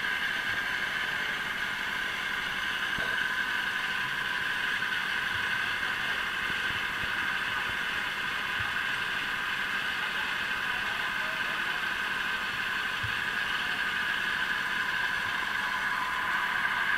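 A steady, unchanging whirring noise, concentrated in the mid-high range, with no voices.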